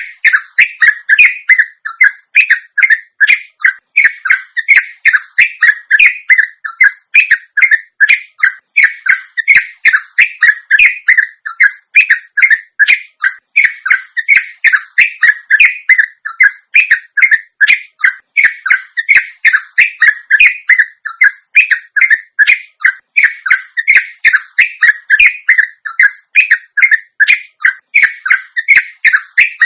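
Yellow-vented bulbul (trucuk) calling in a long, unbroken run of short, rapid notes, the continuous 'ropel' song used as lure audio to make kept trucuk answer and sing.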